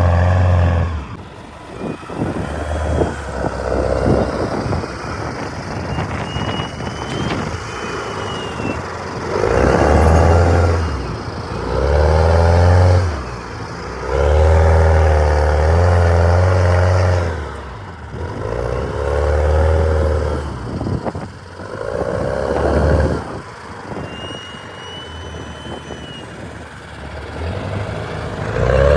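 Heavy diesel engine of a wheeled dozer revving up repeatedly under load, with surges of a second or three and dips between them.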